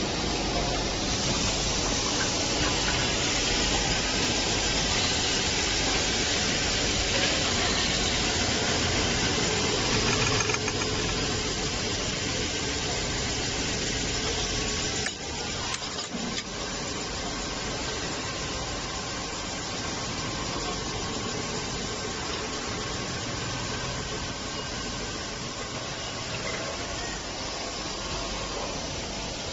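Polishing machine running steadily while sanding the metal body of a pressure cooker: a loud, even hiss with a faint motor hum under it. About halfway through it breaks off for a moment, then carries on slightly quieter.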